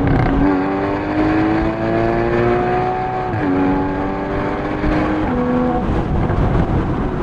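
Porsche Boxster GTS (981) 3.4-litre flat-six exhaust, loud, accelerating under load. The revs climb steadily, fall with an upshift about three and a half seconds in, climb again, and drop once more a little after five seconds.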